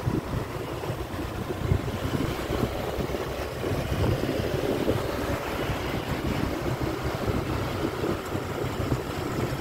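Wind buffeting the microphone as it rides along on a bicycle, a steady choppy low rumble, over the running of nearby cars and motorbikes in street traffic.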